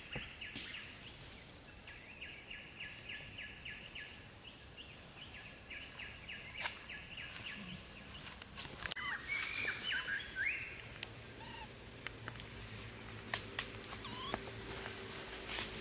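Tropical forest ambience: a steady high insect drone under a bird calling in runs of rapid repeated notes, with scattered light clicks and rustles. A low steady hum comes in about halfway through.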